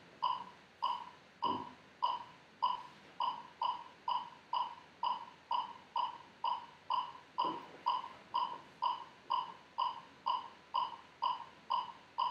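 Electronic metronome clicking at a steady tempo, a little over two beats a second, each click a short pitched beep. Two soft thumps, about 1.5 and 7.5 seconds in.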